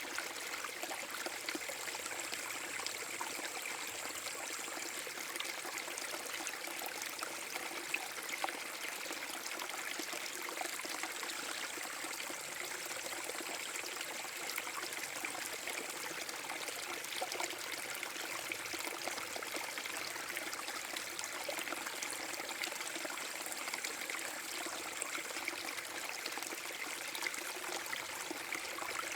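Small forest brook spilling over a mini waterfall: a steady rush of flowing water with fine splashing and trickling.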